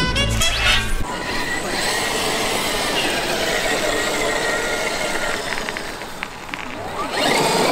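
Background music ends about a second in. Then a Traxxas X-Maxx RC monster truck's brushless electric motor whines, with the pitch wavering as it speeds and slows, along with drivetrain and tyre noise as it drives across grass. The sound gets louder near the end.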